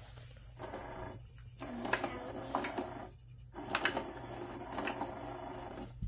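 Pop n Play cat toy's motor running inside its plastic dome, a high whine with some clicking, in three runs separated by short pauses as it moves the feather wand between the holes.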